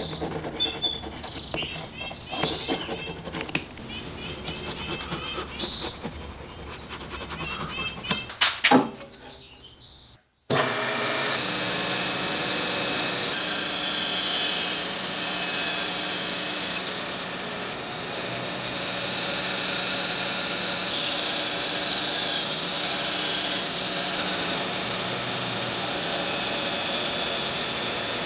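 Small scratching and tapping sounds of marking out a wooden block with a steel rule and scribe. About ten seconds in, a bandsaw starts a steady, even noise as it cuts through the wooden block, and this runs to the end.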